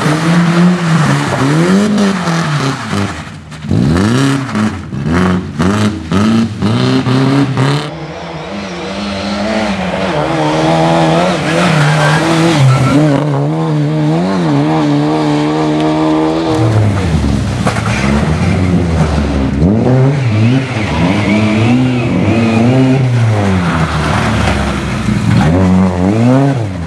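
Rally cars (a BMW E30 and Lada saloons) revving hard as they accelerate and slide on a loose, muddy surface. The engine pitch rises and drops again and again through throttle blips and gear changes, and the sound is choppy for a few seconds near the start.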